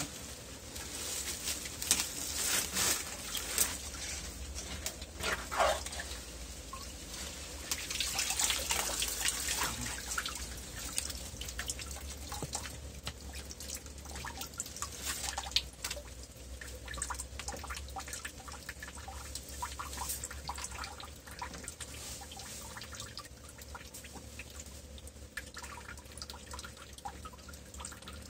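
Shallow water sloshing and dripping as it is scooped through with a hand net, with many small irregular splashes, busiest in the first third.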